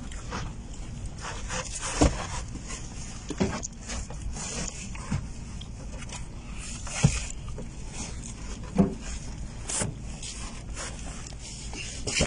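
Cardboard boxes being shifted and pulled about in a hidden compartment under a vehicle floor: scraping, with five or six sharp knocks and thumps, over a steady low hum.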